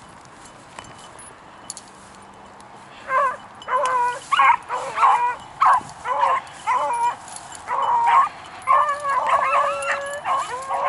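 Beagles baying on a trail: short, pitched hound calls repeated in quick succession, starting about three seconds in, with voices overlapping near the end.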